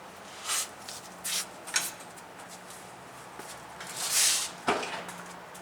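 A few short knocks and rattles, then a louder rush of noise and a sharp clunk about four and a half seconds in, from a 2000 GMC truck: the clunk it makes going over bumps, its cause not yet found.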